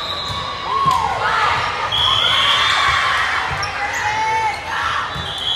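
Busy, echoing gym sound from a volleyball match: balls thudding, sneakers squeaking on the hardwood court, and players and spectators calling out.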